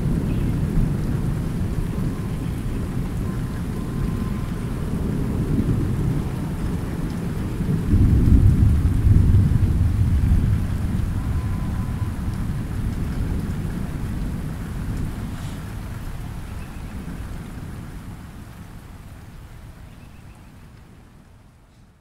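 Thunder rumbling over steady light rain. The rumble swells about eight seconds in, then everything slowly fades away over the last several seconds.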